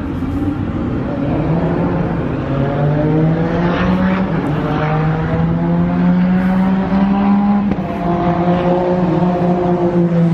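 Race car engines at speed on the track: a steady, high engine note that climbs slowly in pitch, dips about eight seconds in, then carries on.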